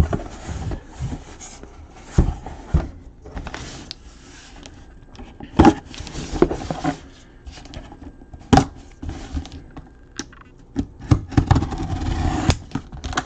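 A cardboard box and its packing being opened and handled by hand: irregular scrapes and rustles with scattered sharp knocks and clicks.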